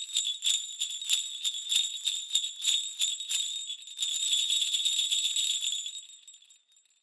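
Jingle bells shaken in a quick, even rhythm, turning into a continuous shimmer about four seconds in and fading out near the end.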